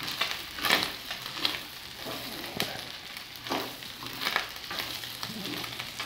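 Beef and pork pieces with onion and chile sizzling in an enamel pot as a spatula stirs them, scraping against the pot about once a second.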